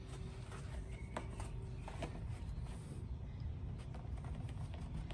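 Faint handling noises: the heavy canvas hood curtain rustling against the body side, with scattered small ticks and scrapes as a chalk stick marks the painted panel, over a low steady hum.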